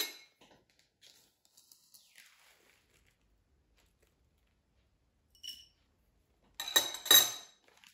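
Teaspoon scooping loose dry tea leaves from a plastic bag toward a glass teapot: faint rustling, a light ringing clink about five and a half seconds in, then two louder clinks with rustling near the end.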